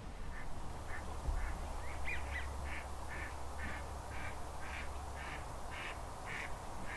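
A duck quacking in a steady series, about two calls a second, growing louder toward the end.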